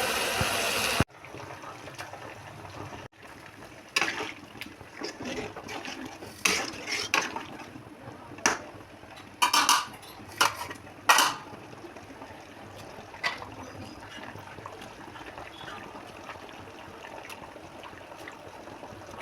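Running tap water for about the first second, cut off abruptly, then kitchen utensils clinking and knocking against pots and dishes in a scattered series over a low steady hiss.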